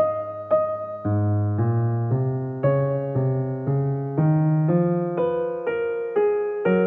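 Background music: a gentle piano-like keyboard melody of single notes, about two a second, over low bass notes.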